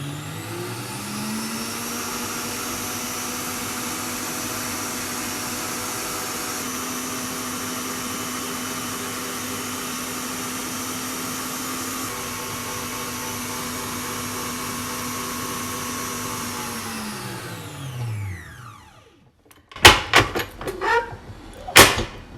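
Electric mixer whipping aquafaba to firm peaks: its motor speeds up at first, then runs with a steady high hum, and near the end winds down and stops. Several sharp knocks and clicks follow.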